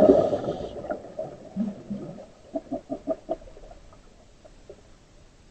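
Scuba diver's exhaled bubbles gurgling out of the regulator underwater, dying away within the first second, followed by a short run of soft clucking pops.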